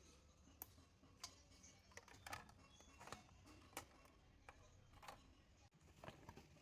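Near silence with a faint low hum and faint, irregular small clicks and taps, about one or two a second.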